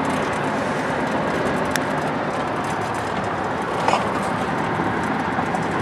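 Steady road and engine noise inside a moving vehicle's cabin at highway speed, with a brief sharper sound just before four seconds in.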